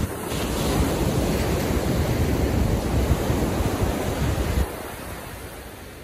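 Ocean surf washing onto a beach, with wind buffeting the microphone. The loud rush lasts about four and a half seconds, then drops off suddenly to a softer wash.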